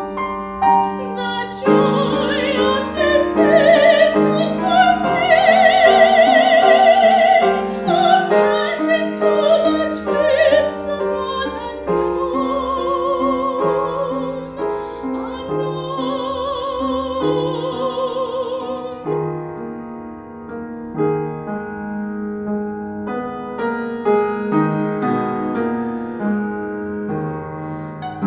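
A woman's voice singing an art song with vibrato over piano accompaniment. About two-thirds of the way through the voice drops out and the piano plays on alone.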